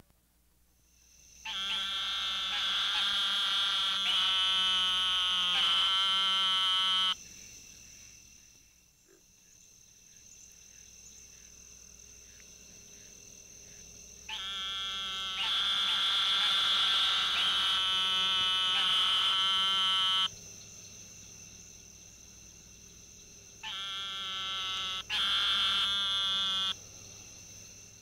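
Eastern narrow-mouthed toad (Microhyla carolinensis) calling: three long buzzing calls, each lasting a few seconds, with pauses between them. A faint steady high-pitched tone runs underneath.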